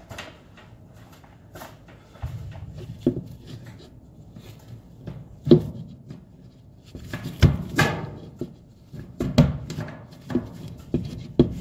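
Red-handled offset aviation snips biting into a galvanized sheet-metal duct trunk to cut out a square opening: irregular sharp metallic snips and crunches, a few at a time, stronger and closer together from about five seconds in.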